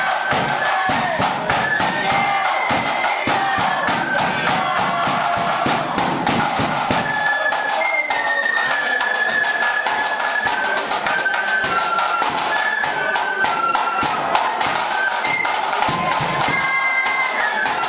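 Marching flute band playing a tune: several flutes in unison carrying the melody over rapid side-drum strokes and a bass drum.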